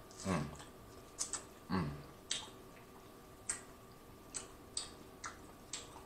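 Close-miked eating sounds: sharp wet lip smacks and mouth clicks every half second to a second while chewing seafood boil, with two short hums falling in pitch in the first two seconds.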